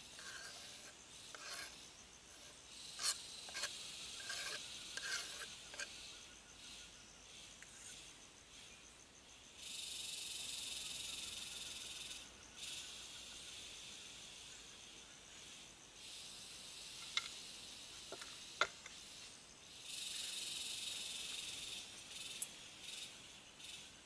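Knife tapping on a wooden cutting board in a run of light clicks for the first six seconds or so, as parsley is finely chopped. Then a high, steady insect buzz comes in twice, each time for about two seconds, starting and stopping abruptly, with two sharp single clicks in between.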